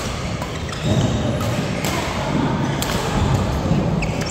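Badminton rally: several sharp cracks of rackets striking the shuttlecock, about a second apart, with thuds of players' feet on the court.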